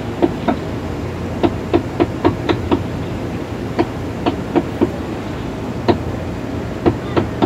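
About fifteen sharp, irregularly spaced hammer knocks, some in quick pairs, from a hand tool striking at the base of a marine engine as it is fitted. Under them a boat's inboard engine drones steadily.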